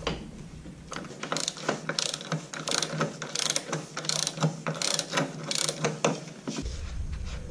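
Socket ratchet wrench clicking in repeated quick strokes, about two a second, as it backs out the large bolt at a scooter's rear wheel arm; the clicking stops shortly before the end.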